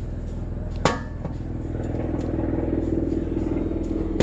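A steady motor drone that grows somewhat louder over the last couple of seconds, with a sharp metallic clack about a second in.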